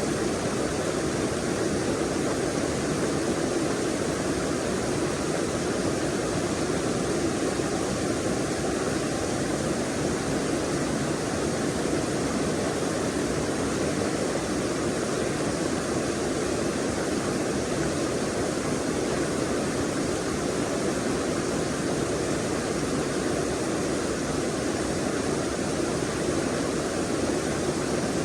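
Forest stream rushing over rocks: a steady, even rush of water, full in the lower-middle range.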